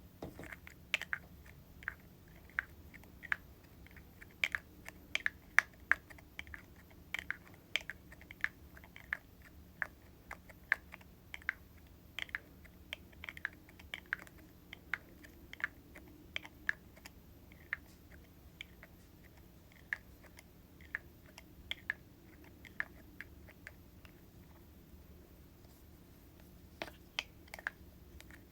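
Fingertips and nails tapping on hair product containers: irregular light taps, sometimes several a second, thinning out in the second half with a short pause before a quick run of taps near the end.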